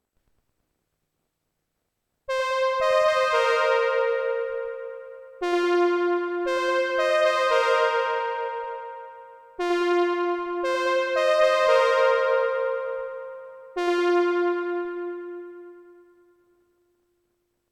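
Korg Minilogue analog polyphonic synthesizer playing a keyboard preset: about two seconds of silence, then four phrases of notes and chords, each struck sharply and left to fade out.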